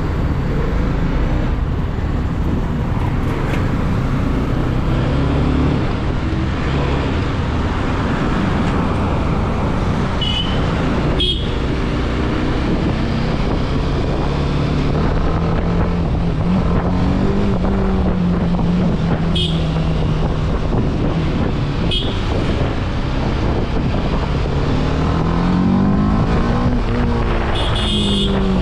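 BMW motorcycle engine heard from the rider's seat, pulling away and accelerating through city traffic. Its pitch climbs, holds steady for a while, then climbs again near the end. Short horn beeps sound several times.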